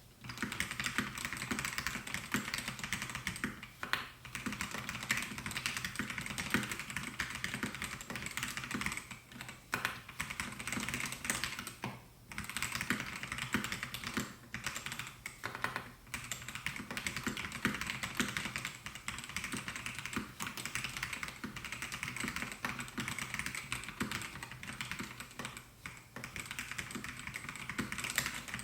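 Melgeek Mojo68 mechanical keyboard with white switches being typed on quickly and continuously: a steady stream of key clacks, starting right at the opening, with a few short pauses between bursts.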